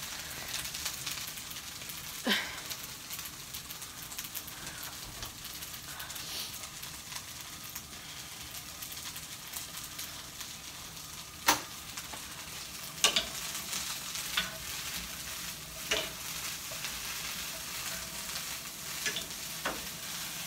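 Food frying in a pan: a steady sizzle, with a handful of sharp knocks scattered through it, the loudest about halfway through.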